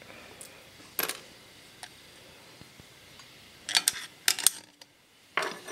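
Light clicks and clinks of a small metal hand tool on aluminum engine parts: a single click about a second in, a quick run of clicks around four seconds in, and a few more near the end.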